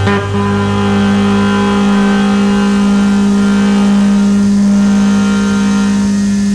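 Slow improvised drone music from a harmonium, bass and saxophone trio: a long held low tone with many overtones, steady and unchanging.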